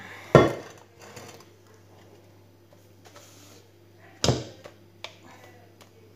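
Stainless-steel stand-mixer bowl and wire balloon whisk being handled: a loud metal knock about a third of a second in and another about four seconds in, with a few light clicks between.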